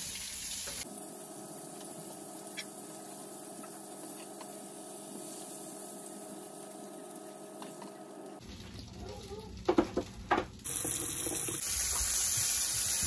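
Stovetop cooking: a pot of water at a rolling boil and battered cod frying in a pan, a steady bubbling and hissing. Two sharp clanks of a utensil or pan about ten seconds in.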